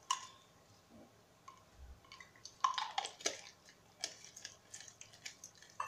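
Scattered light clicks and taps of small glass and plastic bottles and their caps being handled and set down on a tiled counter, busiest about halfway through.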